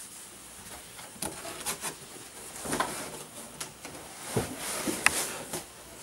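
Cardboard boxes rustling and bumping as the people inside them shuffle together: a scattering of short scuffs and knocks, starting about a second in and getting busier from about halfway.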